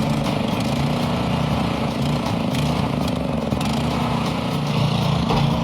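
Mini excavator's engine running steadily under work, with a few faint clicks over it.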